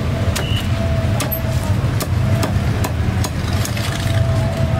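Cleaver chopping through a roast duck on a wooden chopping block, about two sharp chops a second, over a steady low background rumble.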